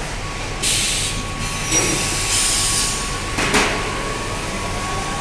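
CNC lathe running for a turning job on a camshaft: a steady whine sets in just after the start, with two bursts of hiss and a sharp knock about three and a half seconds in.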